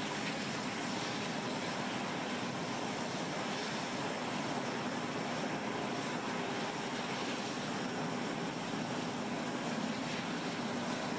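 Aircraft engines running steadily: an even rush of noise with a faint, thin high whine held throughout.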